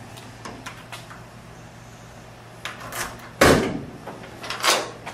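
Trunk lid of a 1964 Pontiac GTO being unlatched and raised: a few light clicks, then a loud clunk about three and a half seconds in and a second clunk about a second later.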